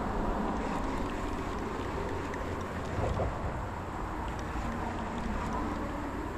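Steady rushing noise with a low, flickering rumble of wind buffeting the microphone.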